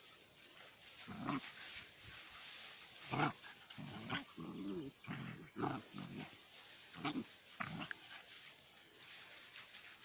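Border Collie puppies play-fighting, giving a string of short growls and yips, the loudest about three seconds in.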